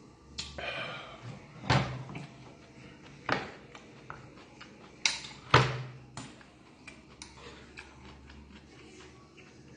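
Metal spoon knocking and scraping against a black earthenware soup bowl while stirring galbitang: about five sharp clinks, the loudest a little past halfway.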